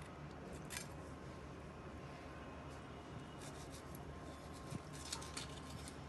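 Knife cutting into a large narrow-barred Spanish mackerel along its backbone, faint, with a few short scratchy strokes as the blade goes through skin and flesh against the bone.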